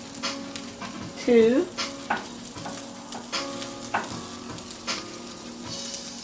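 Bacon pieces sizzling in a hot non-stick frying pan, a steady frying hiss with scattered crackles and pops. A short wavering pitched sound stands out about a second and a half in.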